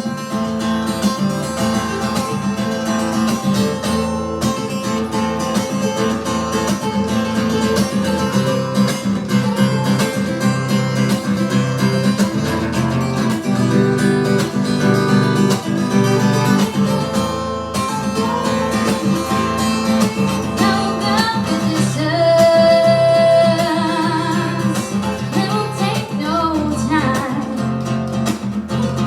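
Acoustic guitar strummed in a steady rhythm with wordless singing over it, an instrumental passage of a live song; a held vocal note stands out about three-quarters through.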